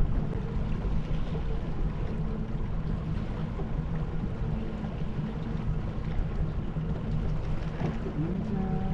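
Boat motor running steadily at slow trolling speed, a constant low drone over a rush of wind and water noise.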